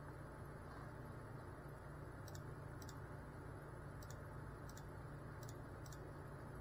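Faint steady low hum with a thin high whine, and about six faint, irregular clicks from about two seconds in.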